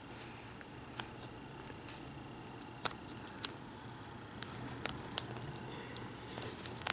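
Fingertips peeling adhesive tape off a laptop LCD panel's video cable connector: faint, scattered small clicks and crackles.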